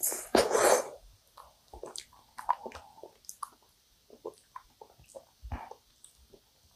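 Close-up mouth sounds of eating a sticky, chewy yakgwa (Korean honey cookie) topped with ice cream. A loud wet bite in about the first second, then soft chewing with small sticky clicks and smacks.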